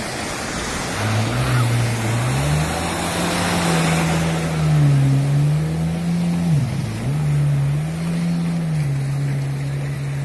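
Jet ski engine revving as the craft pulls away through the surf, its pitch climbing about a second in, then rising and falling with the throttle and dipping briefly about two-thirds through before settling steady. Waves wash on the shore throughout.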